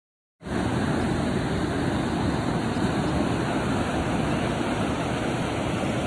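Ocean surf washing onto a sandy beach: a steady rushing noise that starts about half a second in.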